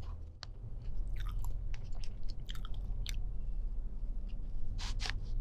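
Close-miked eating sounds: scattered wet clicks and smacks of chewing, a few louder near the end, while a plastic fork and spoon cut a syrup-soaked hotcake.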